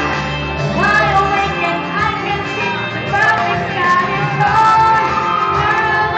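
A woman singing a pop song over music, with long held and gliding notes.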